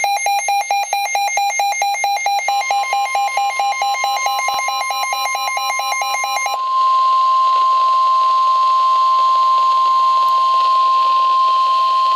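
NOAA Weather Radio's steady 1050 Hz warning alarm tone, the signal that a warning message is about to be broadcast. For the first several seconds a rapid electronic beeping of about seven beeps a second sounds with it; the steady tone joins about two seconds in, and the beeping stops about six and a half seconds in, leaving the tone alone.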